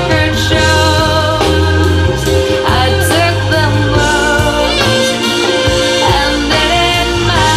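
Recorded music played back through Jamo S606 loudspeakers: a vocal with vibrato over a strong, steady bass line.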